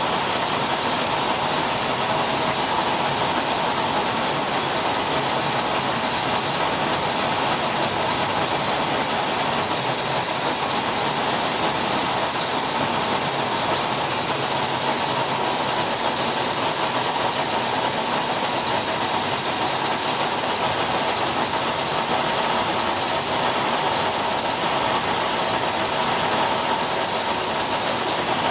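Universal milling machine running steadily, milling a keyway in a shaft: a constant whirring noise with a steady hum, no breaks or changes.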